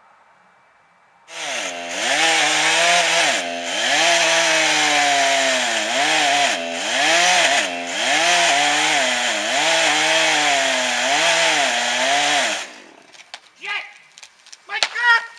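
Chainsaw cutting into a pine trunk: it starts about a second in and runs for some eleven seconds, its engine note repeatedly dipping and climbing as the chain bogs in the wood and picks up again, then stops. A few sharp cracks follow near the end.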